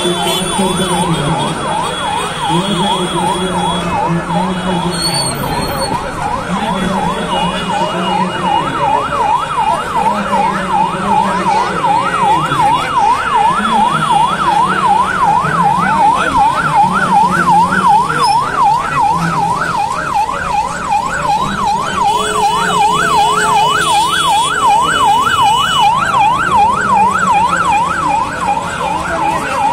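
Emergency-vehicle siren in a fast yelp, its pitch rising and falling about two to three times a second, loud and unbroken until it cuts off at the end, over a lower traffic hum.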